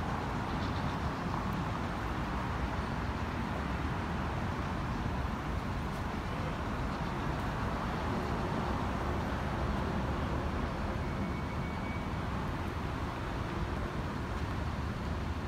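Steady city road-traffic noise, an even wash of sound with no single vehicle standing out.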